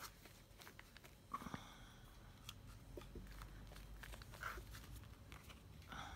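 Faint rustling and small clicks of paper and a wax-painted card being handled and dabbed with a sponge, with a few brief louder rustles.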